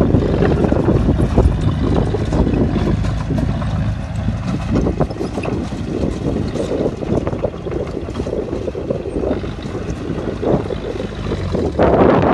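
Crawler bulldozer's diesel engine running hard while pushing dirt, with a steady low sound and clatter, swelling louder just before the end.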